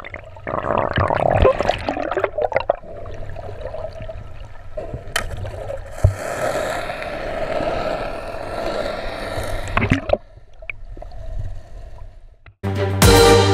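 Water sloshing and gurgling as picked up by an underwater camera, with a few sharp clicks about five, six and ten seconds in.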